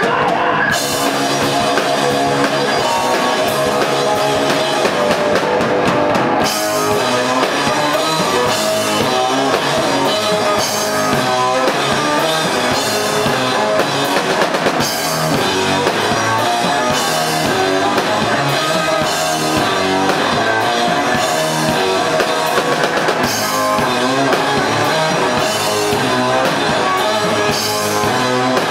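A rock band playing live, with a drum kit and electric guitars, loud and steady and without a break.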